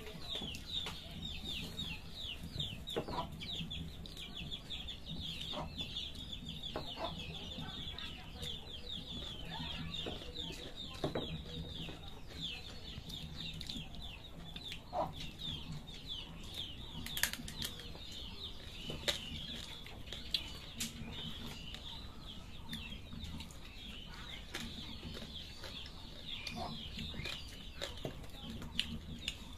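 Many small birds chirping nonstop in a dense chorus of short, quick falling chirps, with scattered light clicks and taps from hands and food on plates.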